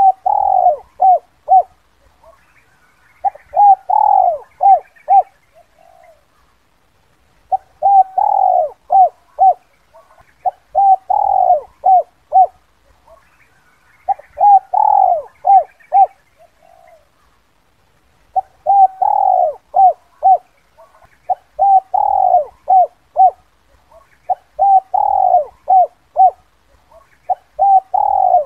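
Spotted dove cooing in its 'kuk 2' call: repeated phrases of several short coos, each phrase about a second and a half long, with short pauses between them and two longer pauses, about six and seventeen seconds in.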